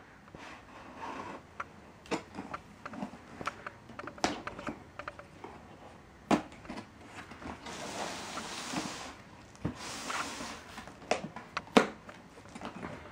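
Hands working at the taped seal of a cardboard laptop box: scattered knocks, taps and scrapes on the cardboard, with two longer rasping stretches a little past halfway.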